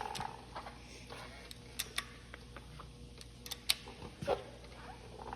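A scattering of short, sharp clicks and taps, about eight to ten irregular ones, as small tools and metal parts are handled during work on an engine.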